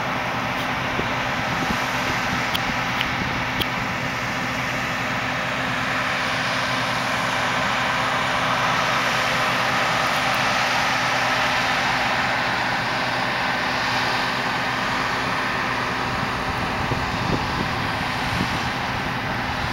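John Deere 1177 combine harvester running steadily as it cuts barley, a continuous drone with no change in pace.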